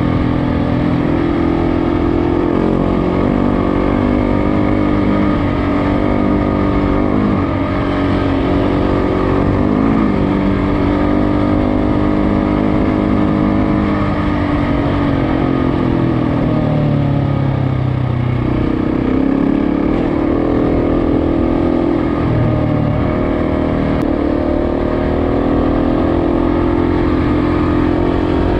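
KTM motorcycle engine running under way, its pitch rising and falling with the throttle and dropping noticeably past the middle before picking up again, over steady wind and road noise.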